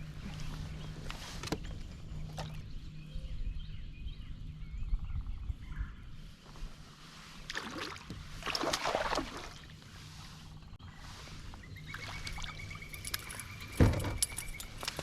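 Sounds aboard a fishing kayak on the water: a steady low hum for most of the stretch, with several short bursts of handling or water noise, the longest a few seconds in from the middle, and a thin high whine near the end.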